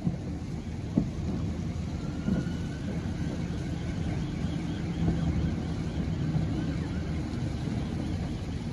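Steady low rumble of a distant police RIB's engines running at speed on the river, with wind on the microphone. A faint warbling high tone comes and goes in the middle.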